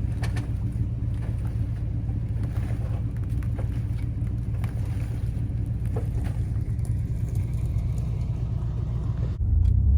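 Truck engine running in a steady low rumble as the freed truck moves through icy mud. A little before the end the rumble changes abruptly to a louder, deeper one.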